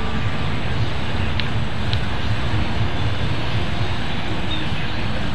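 Steady outdoor rushing noise with a low rumble, with no distinct events: wind and flowing flood water.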